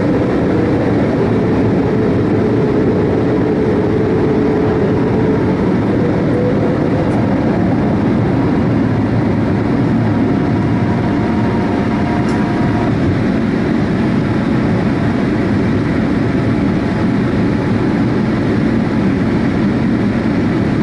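Boeing 787-8 jet engines running at climb power: a steady, loud rumble with a few faint tones above it, one sliding slightly lower during the first few seconds.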